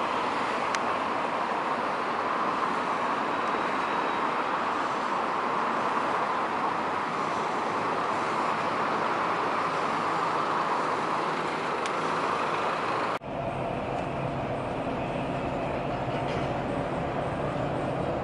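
Steady outdoor street and traffic noise, cut off suddenly about thirteen seconds in and replaced by the lower running rumble of a coach bus heard from inside its cabin.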